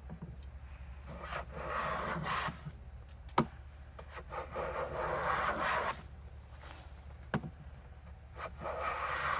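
A board being jointed by hand: three long rubbing strokes of tool on wood, each lasting a second or two, with a sharp knock between the strokes.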